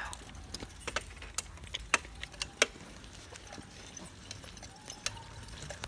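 A scattering of sharp clicks and knocks over a low steady hum, the loudest about two seconds in.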